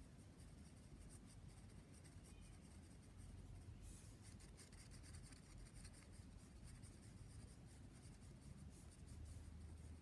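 Graphite pencil scratching faintly on drawing paper in quick, short shading strokes, a little louder from about four seconds in.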